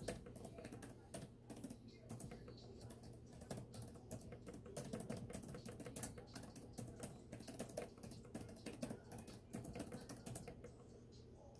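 Typing on a laptop keyboard: a quick, irregular run of key clicks.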